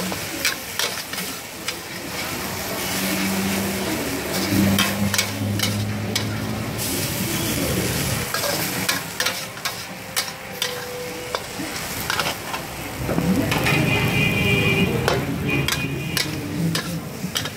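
Egg noodles and vegetables sizzling in a large wok while a metal ladle stirs and tosses them, scraping and clanking against the wok again and again.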